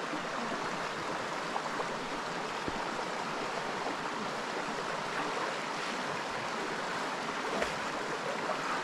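Shallow rocky stream running steadily over boulders in small rapids, an even rushing of water.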